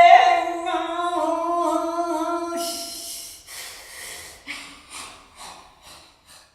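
A voice hums or sings one long held note that wavers a little and fades out. It is followed by a run of short breathy exhalations, each fainter than the last, dying away to nothing.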